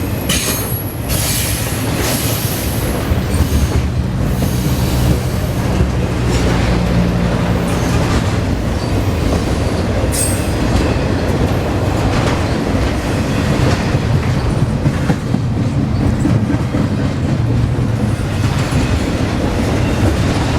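Freight train rolling past close by: a loud, steady, ground-shaking rumble of cars on the rails, with scattered clanks and wheel squeal.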